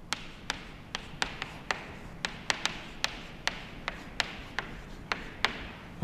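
Chalk tapping on a chalkboard during handwriting: a run of sharp, irregular taps, about three or four a second, that stops shortly before the end.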